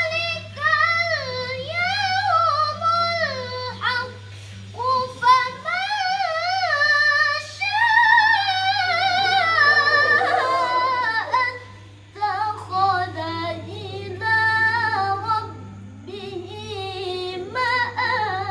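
A female voice reciting the Qur'an in the nahawand maqam: long melodic phrases with wavering, ornamented turns and short pauses for breath. A steady low hum runs underneath.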